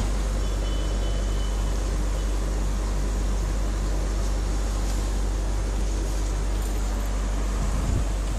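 A steady low hum under constant hiss, with brief handling bumps at the start and again near the end.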